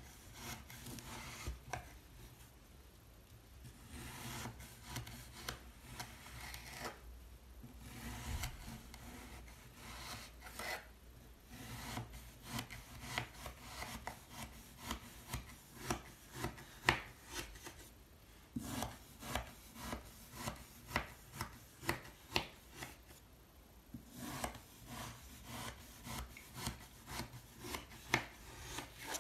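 Kinetic sand being sliced again and again with a thin blade: a series of short, crisp crunches with soft scraping between them, the cuts coming faster, about one or two a second, in the second half.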